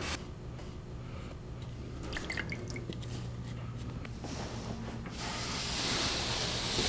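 A shellac-soaked cotton pad being worked into the wood of a frame's rabbet. There are a few faint wet ticks about two seconds in, then a soft rubbing hiss grows from about five seconds in as the pad is wiped along the wood.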